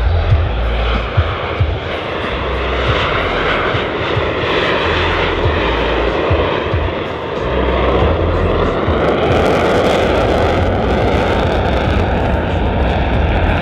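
F-16 Fighting Falcon jet engine noise during a low slow pass: a steady, dense rush of jet noise that grows louder and harsher about eight seconds in.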